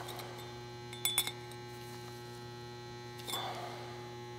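Lineman's pliers clicking against the chrome shower-rod tube as its notched end is squeezed inward: a few short metallic clicks about a second in and another near three and a half seconds. A steady electrical hum runs underneath.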